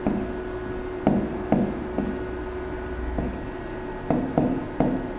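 Pen tip tapping and scratching on an interactive smart-board screen while handwriting: several sharp taps in irregular groups, over a faint steady hum.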